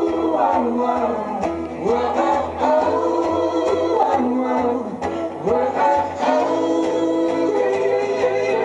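Live acoustic string band playing: plucked guitar and banjo with upright bass notes underneath. A melody line slides up and down between notes over them.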